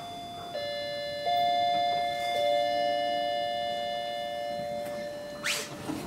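Elevator hall chime announcing a car's arrival: two gong-like tones, the second louder, ringing on and slowly fading over several seconds. Near the end the landing doors begin to slide open with a short whoosh.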